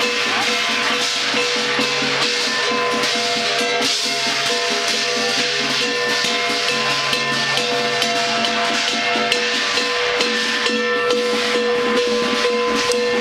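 Traditional Chinese festival music: rapid drum and cymbal strokes under long, steady held pitched notes.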